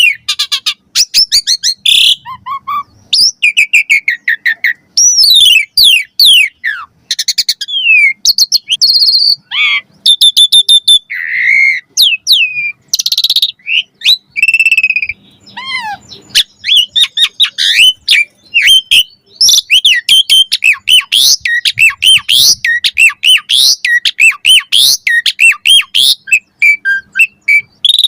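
Asian pied starling (jalak suren) singing in full voice: a fast, near-continuous string of varied whistles and chirps gliding up and down, broken by a few harsh rattling notes and squawks.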